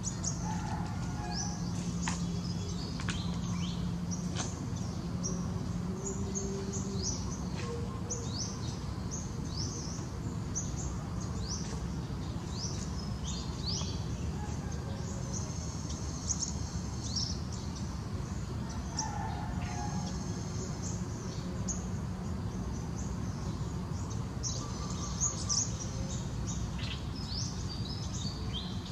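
Background birdsong: many short, quick chirps that fall in pitch, scattered throughout, over a steady low rumble.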